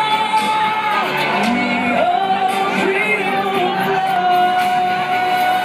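A man singing a pop song into a handheld microphone over backing music, holding long notes that glide down between them.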